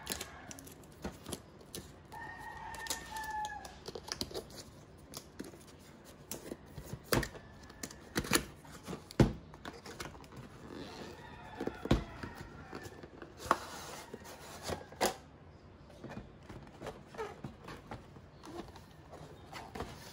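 Sharp clicks, taps and rustles of a dashcam's box and accessories being handled and unpacked. About two seconds in, a drawn-out, slightly falling call sounds in the background for over a second.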